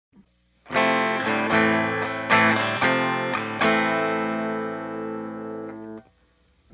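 Yamaha SG-5A electric guitar playing a short run of strummed chords, about six strikes, the last chord left to ring until it is cut off about six seconds in.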